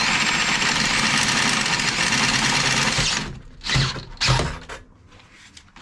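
Power drill with an 18 mm bit running and cutting into a fat-bike frame tube, stopping about three seconds in. Two short bursts of the drill follow.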